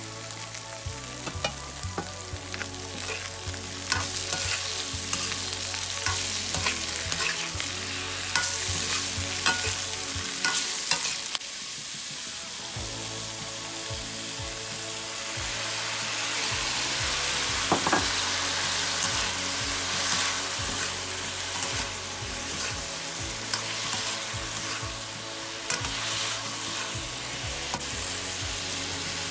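Shrimp frying in a hot wok with carrots and onion, sizzling, while a metal spatula taps and scrapes the pan as they are stirred. About halfway through, oyster sauce thinned with water is poured in and the sizzle swells into a denser, steadier hiss.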